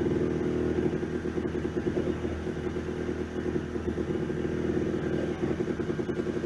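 A machine motor running steadily, low in pitch with a fast rattling flutter.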